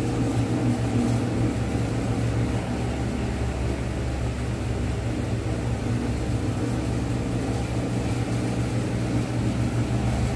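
A steady low hum, as of a motor or electrical appliance running, with no distinct events.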